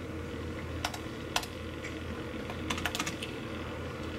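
Typing on a computer keyboard: scattered, irregular key clicks, a few at a time, over a faint steady low hum.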